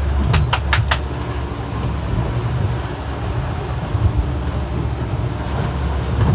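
A boat's engine running with a steady low drone under wind and water noise. Within the first second there is a quick run of four sharp clicks.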